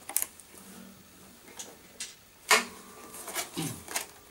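Clear plastic packaging of a guitar capo being handled and pried open: a scattering of sharp plastic clicks and crackles, the loudest about two and a half seconds in.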